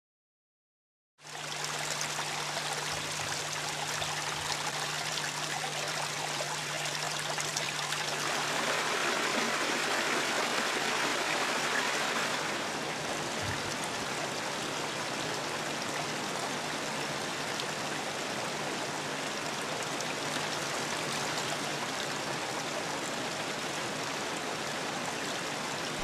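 Mountain stream rushing over boulders: a steady wash of running water that starts about a second in and swells a little for a few seconds in the middle.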